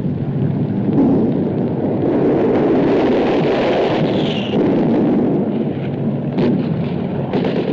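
Bombs exploding in a continuous heavy rumble, with a few sharper cracks near the end.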